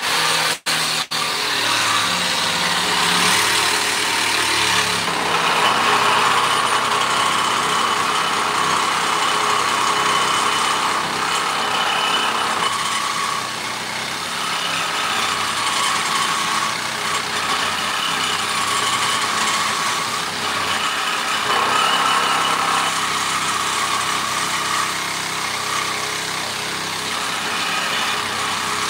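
Cordless angle grinder cutting steel: a loud, steady grinding whine whose tone shifts every few seconds as the disc works through the metal, with a few sharp clicks in the first second.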